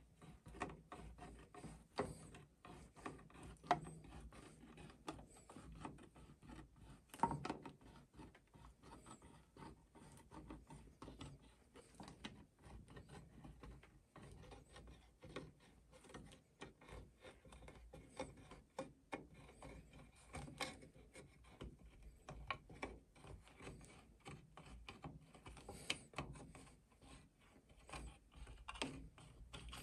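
Lever-type can opener of a Mikov Stovka 100-NH-7A pocket knife cutting around the rim of a tin can lid: a faint, irregular run of small clicks and scraping as the blade is levered through the metal step by step, with a few louder clicks now and then.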